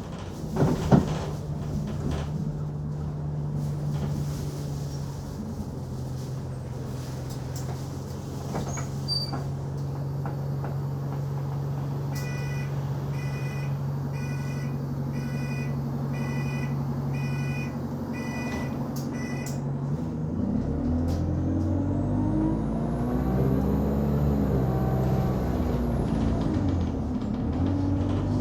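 Enviro200 Dart single-deck bus engine idling with a steady hum, with a couple of sharp knocks in the first second. A run of electronic beeps, about one a second, sounds for several seconds, then the engine revs up as the bus pulls away, with a high whine rising and falling.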